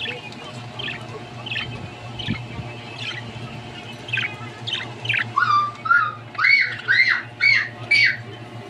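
Budgerigars chirping: short chirps about every half second, then from about five seconds in a run of louder, warbling chirps that rise and fall in pitch.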